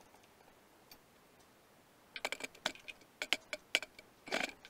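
Sharp metallic clicks and taps from a T-handle driver and metal parts being handled against the jackhammer's motor housing, starting about two seconds in and ending in a short scraping rattle.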